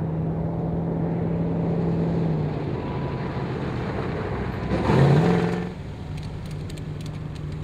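Early Ford Bronco off-road race truck running on the dirt course as it approaches, its engine note steady. It gets loudest, with a rush of tyre and dirt noise, as it passes close by about five seconds in, then fades to a lower engine sound.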